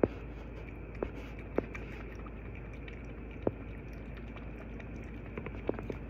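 Kitten lapping water from a clear bowl: short wet clicks and drips, a few scattered ones, then a quicker run of them near the end, over a steady low hiss.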